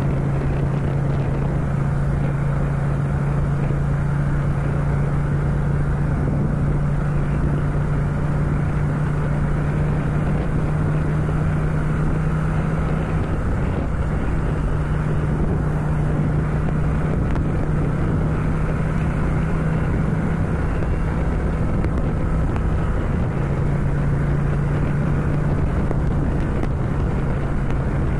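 Ducati Scrambler's air-cooled L-twin engine running steadily at highway cruising speed, with wind rushing over the microphone. About two-thirds of the way in the engine note breaks briefly as it shifts up from fifth into sixth gear.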